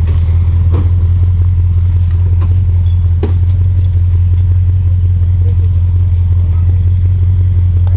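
Motor vehicle engine running steadily at a constant low speed, a deep even drone with no revving, with a couple of faint knocks about one and three seconds in.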